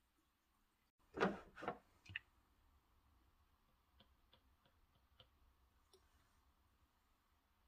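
Quiet kitchen handling noise: two short rustling scrapes about a second in and a click just after, then a few faint light ticks.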